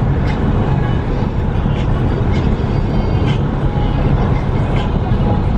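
Steady road and engine noise inside a moving car: a loud, even low rumble, with a few faint clicks.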